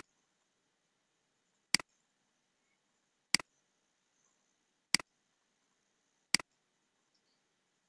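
Computer mouse clicking five times, about one sharp click every second and a half, with near silence between the clicks.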